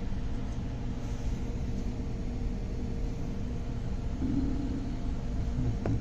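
Steady low mechanical rumble with a constant hum, from machinery running in the background.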